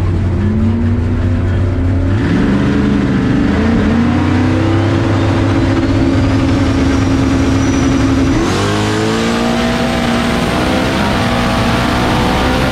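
Turbocharged drag car engine heard from inside the cockpit, revving up in steps while a high turbo whistle rises over it. About eight seconds in, the engine jumps higher and its pitch keeps climbing.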